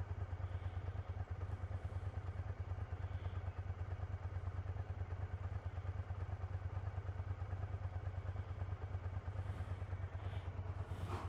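Motorcycle engine idling steadily, with a low, even pulsing.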